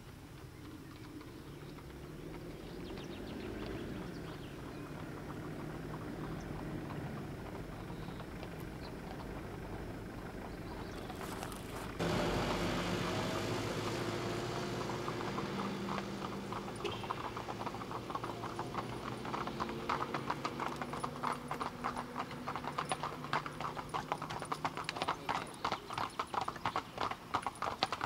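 Hooves of a team of carriage horses clip-clopping on an asphalt road, the hoofbeats growing louder and closer toward the end. A low steady hum runs underneath, and the sound jumps louder suddenly about twelve seconds in.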